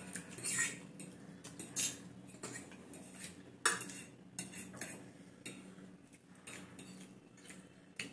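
Metal forks clinking and scraping on plates as people eat noodles: scattered sharp clicks at irregular intervals, the loudest about three and a half seconds in, over a steady low hum.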